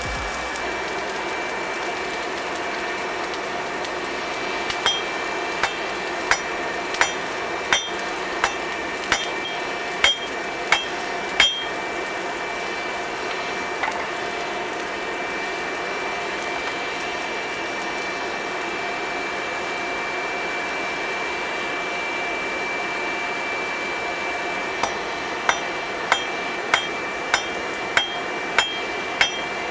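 A hand hammer strikes steel on an anvil in two runs of evenly paced blows, each with a short metallic ring: hot iron being forged into blacksmithing tongs. A steady rushing hiss runs underneath.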